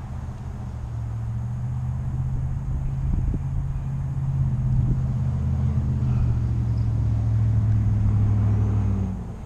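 A motor vehicle's engine running with a low, steady hum, growing louder over several seconds and then dropping away quickly near the end.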